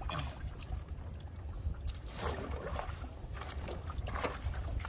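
Canoe paddle strokes splashing and pulling through lake water, two clear strokes about two seconds apart, over a steady low rumble.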